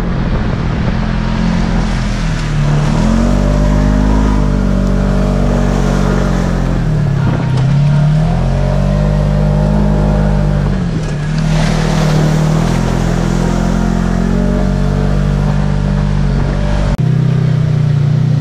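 Polaris RZR XP 4 1000 side-by-side's engine heard from inside the cab, its revs rising and falling over and over as it pushes along a deep snow and slush trail, with a steady rush of tyre and slush noise underneath.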